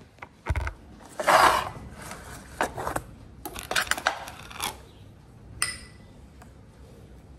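Spoon and bowl sounds on a kitchen counter as yogurt is spooned out: a low knock, a louder scrape about a second in, then scattered clicks and taps, one tap near the end ringing briefly.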